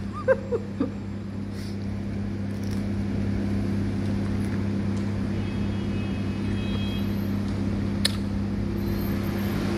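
Steady low mechanical hum of room equipment at an even pitch. Brief faint voice sounds come in the first second, and a single sharp click comes about eight seconds in.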